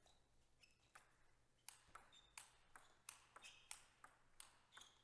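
Faint table tennis rally: the celluloid ball clicking off the bats and the table with a short pinging ring, light irregular hits a fraction of a second apart from about one and a half seconds in.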